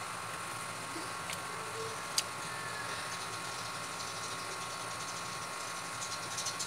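Steady mechanical hum with a few held tones, with one sharp click about two seconds in and faint light crackles near the end.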